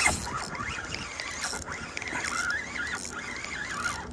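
Fishing reel whirring with a wavering high pitch and a few clicks while a big gar is on the line.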